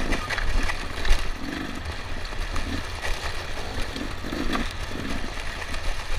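Dirt bike engine heard from the rider's helmet, its note swelling and dropping in short throttle bursts while climbing slowly over rocky ground, with a low rumble of wind and rough terrain and a few sharp knocks from rocks and the bike.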